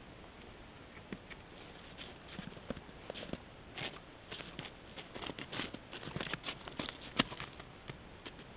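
Irregular crunching and clicking from a bull elk moving about close to a trail camera, picked up by the camera's own thin-sounding microphone. The sounds are sparse at first and grow denser and louder in the second half, with one sharp crack near the end.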